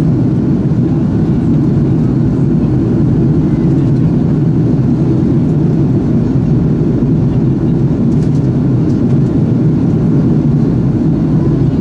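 Airbus A330-200 cabin noise in flight, heard from a window seat: a steady, even, deep rumble of jet engines and airflow with no change in pitch or level.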